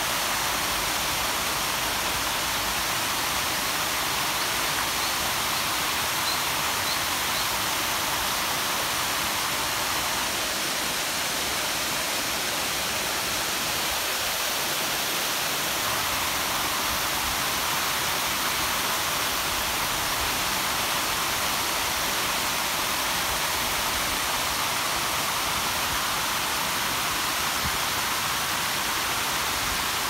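Garden waterfall, a wide curtain of water falling over a rock ledge into a pond: a steady, even rush of splashing water.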